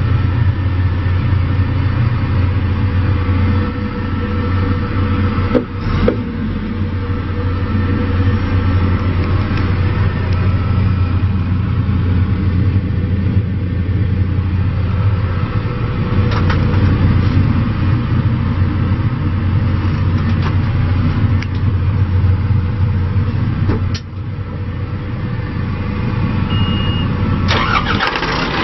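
A John Deere 410J backhoe loader's diesel engine running with a steady, even hum. A few short clanks or knocks come at intervals over it.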